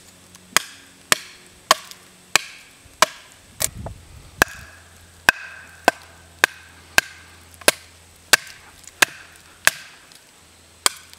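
Batoning: a beech hardwood baton striking the spine of a knife again and again, about three sharp blows every two seconds, driving the blade down the edge of a sugar maple limb to split off wood.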